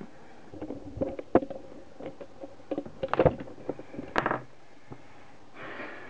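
Handling clatter: a run of irregular clicks and knocks as the cut-open metal laser pointer tube is handled, ending with a knock as it is set down on a wooden desk about four seconds in.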